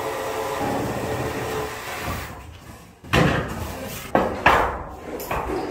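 A steady noise fades away over the first few seconds. Then come about four sharp knocks and bangs, spaced roughly a second apart, like hard objects struck or dropped.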